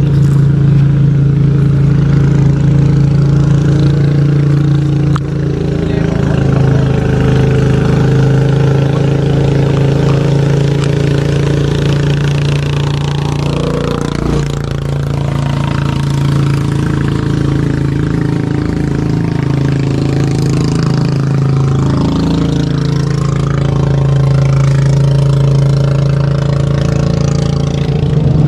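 A small engine running steadily at an even speed, with a strong low hum and brief slight wavers in pitch about halfway through and again later.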